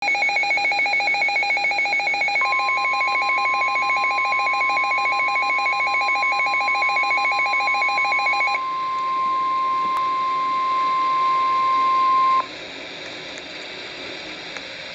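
NOAA Weather Radio alert tones: a rapidly pulsing electronic alarm beeps for the first eight or so seconds, overlapped from about two seconds in by the steady 1050 Hz warning alarm tone, which cuts off abruptly about twelve seconds in and leaves a faint radio hiss.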